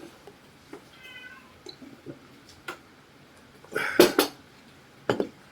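High-pitched cries of a small animal: a faint one about a second in, a louder one around four seconds in and a short one near the end.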